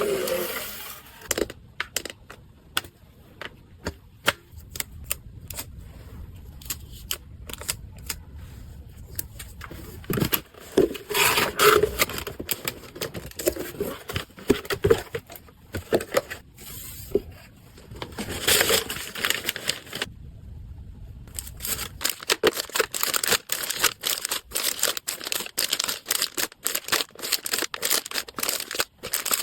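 Packaging being handled at close range: crinkling and tearing with many sharp clicks and taps, briefly pausing about twenty seconds in.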